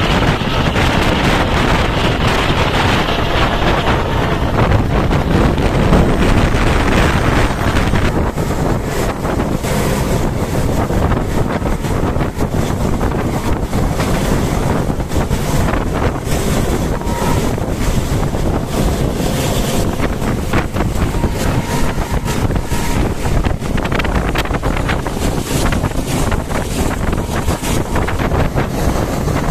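Rush of wind buffeting the microphone over the steady running noise of a moving passenger train, becoming gustier about eight seconds in.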